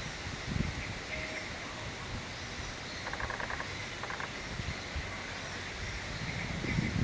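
Birds calling outdoors: two short rapid trills about three and four seconds in and a brief single note about a second in, over steady outdoor background noise, with low wind buffets on the microphone near the start and end.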